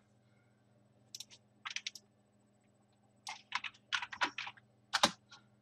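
Computer keyboard typing: short runs of keystrokes with pauses between, from about a second in, a longer run after three seconds, and one sharper key stroke near the end.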